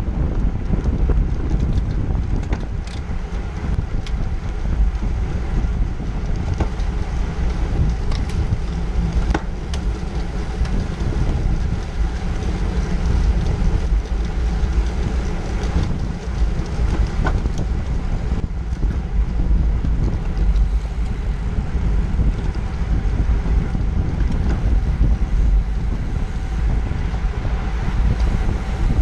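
Wind buffeting the microphone of a camera on a road bike ridden at about 20 mph in a racing pack: a steady low rumble with a few faint clicks.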